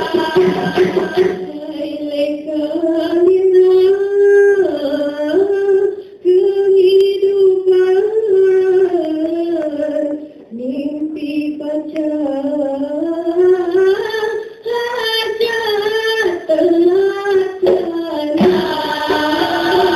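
Dikir barat singing: a single female voice sings a slow, winding melody alone, with two short breaths between phrases. The full group with tambourine and maracas drops out about a second and a half in and comes back in near the end.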